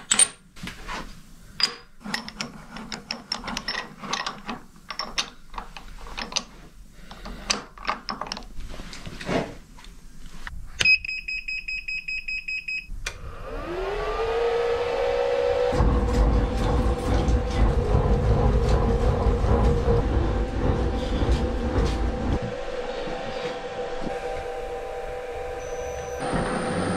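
Clicks and knocks of a steel bar being set and clamped in a milling vise. Then comes a rapid beeping tone for about two seconds. After that the Bridgeport milling machine's motor spins up on its variable frequency drive: a rising whine that settles into a steady whine with running noise beneath it.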